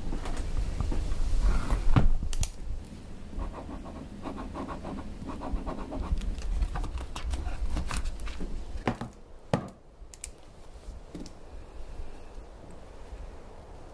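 Scraping and scratching with scattered small knocks, as of tableware being handled. It is busiest in the middle and quieter after about nine seconds.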